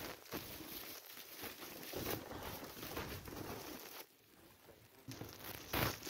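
Plastic wrap and packing tape being peeled and crinkled off a cardboard box by hand, with a short pause about four seconds in.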